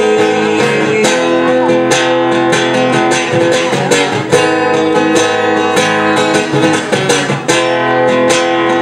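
Acoustic guitar strummed in steady chords: an instrumental break in a song, with no singing.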